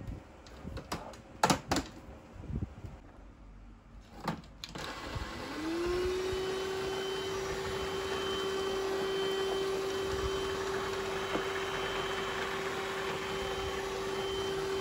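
Cordless stick vacuum cleaner: a few sharp clicks and knocks as it is handled, then about five seconds in the motor switches on, whining quickly up to a steady pitch, and keeps running evenly.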